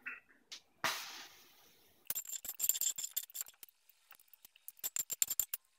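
A pancake flipped with a slotted metal spatula lands in a buttered cast iron skillet with a soft slap and a short sizzle about a second in. Then come sharp metallic clicks and clinks of the spatula against the cast iron, in two clusters.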